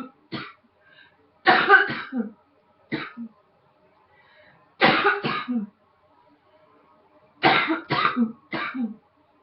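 A woman coughing in short fits of one to three harsh coughs, with pauses of a second or two between the fits.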